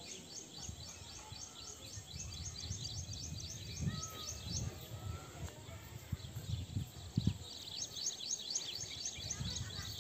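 A bird calling in a rapid series of short, high chirps, about four or five a second, stopping midway and starting again near the end. Low rumbles and a few thumps, the loudest of them about four and seven seconds in, lie underneath.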